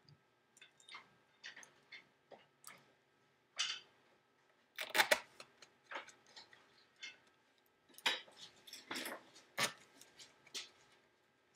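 A small Phillips screwdriver driving screws into a MacBook Pro's aluminium bottom case: irregular small metallic clicks and ticks, with louder clusters of clicks about five seconds in and again from about eight to ten seconds in.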